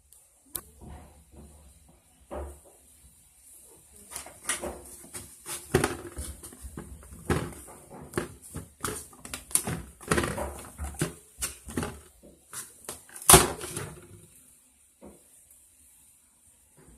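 Sticky, homemade candy slime being kneaded and pulled by hand on a plastic plate: irregular wet smacks and small taps, busiest in the middle, with one louder knock late on.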